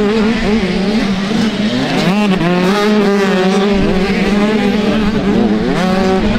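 Motocross bike engine running hard, its pitch rising and falling with the throttle, with sharp climbs about two seconds in and again near the end.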